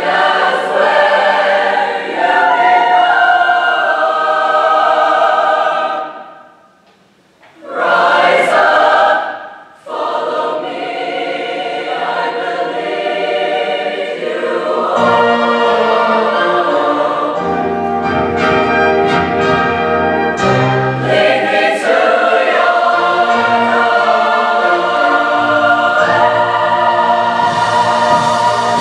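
Mixed show choir singing in full harmony. The singing breaks off briefly about six seconds in, comes back with a short loud chord, then continues, with low bass notes entering about halfway through.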